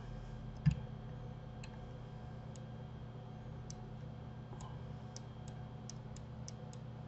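Faint computer mouse clicks, about a dozen at irregular intervals, over a steady low hum, with one soft thump about half a second in.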